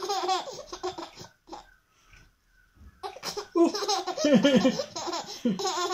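A toddler girl laughing in bursts. She goes quiet for about a second in the middle, then laughs again more loudly.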